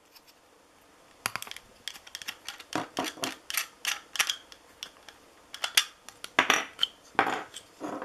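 Hard plastic clicking, tapping and scraping as a clear action-camera waterproof housing is worked onto a black plastic J-hook buckle mount. An irregular run of small clicks and rubs starts about a second in, with the loudest scrapes in the second half.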